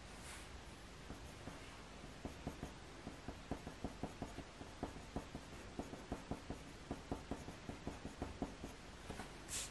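Faber-Castell Polychromos coloured pencil scratching quick short flicking strokes on hot-press watercolour paper, several a second, to build up fur texture. Near the end comes one brief, louder rustle of paper.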